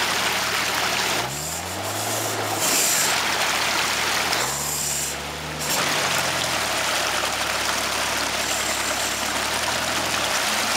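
Jeep Cherokee XJ's diesel engine working through deep mud, revving up twice (about a second in and again around four and a half seconds), then easing off, over a steady hiss of running water.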